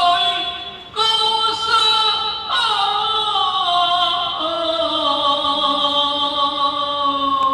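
Cantonese opera singing: a sung phrase drawn out on long notes, moving to a new note about a second in and again about two and a half seconds in, then holding one long note that slowly slides down in pitch.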